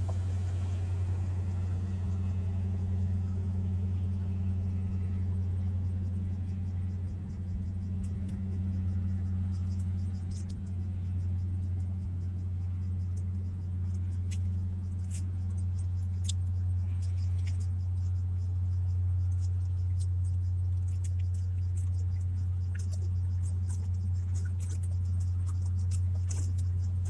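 A steady low engine drone, unchanging throughout, with scattered light clicks and ticks that come more often in the second half.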